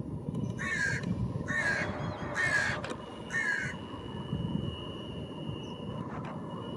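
Crow cawing four times, about a second apart, over a steady low background rumble.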